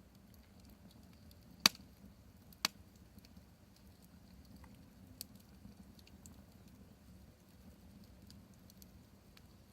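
Wood fire crackling with faint scattered ticks, and two loud sharp pops about a second apart near the two-second mark.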